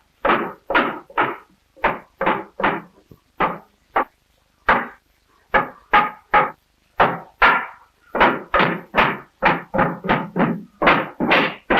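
Rapid hammer blows, about two a second with a couple of short pauses, as a cooper drives the hoops down over the oak staves of a barrel being raised, each blow a hollow knock on wood and iron.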